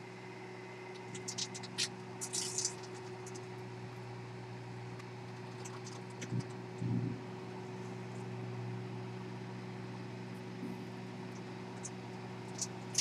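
Microwave oven running with a steady hum while a cell phone cooks inside it, crackling and popping a few times, briefly about a second in, around six to seven seconds in, and once near the end, as the phone burns to the point of smoking.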